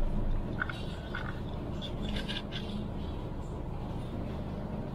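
Ferry boat's engine running underway with a steady low hum, with a few faint clicks and knocks over it.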